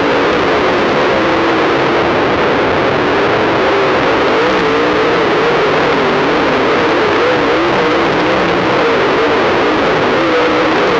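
Distorted, overloaded sound of several dirt late model race car engines running hard through the turn, their pitch wavering up and down as the cars throttle through the corner.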